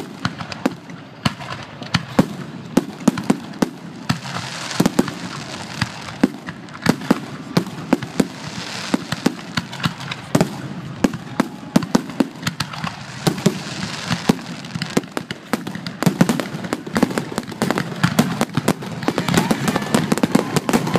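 Aerial fireworks going off in a rapid barrage, with sharp bangs and pops following one another several times a second. The bangs come thicker near the end.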